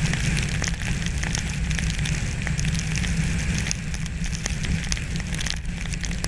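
Icy rain pattering as a dense, steady crackle of small ticks, with wind rumbling on the microphone.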